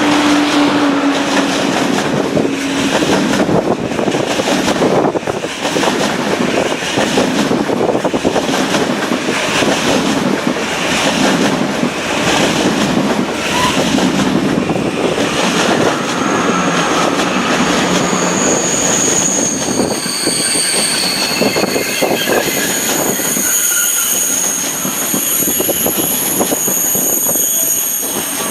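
A train passing close by, its wheels going over the rail joints with a regular clack about once a second. From about two-thirds through, high steady squeals from the wheels on the rails join in.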